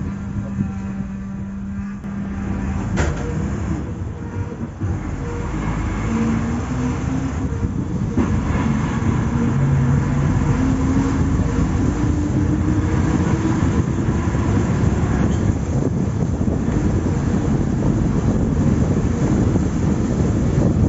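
Road vehicle engine in traffic: a steady hum for the first few seconds, then an engine note that rises slowly as the vehicle gathers speed, under a low road rumble that grows louder.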